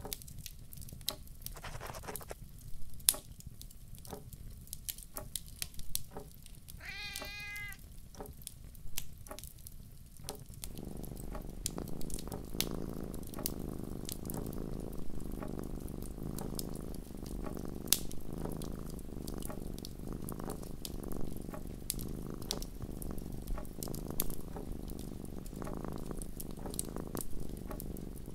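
Wood fire crackling with sharp pops throughout, a cat meowing once about seven seconds in, then a cat purring steadily from about ten seconds on.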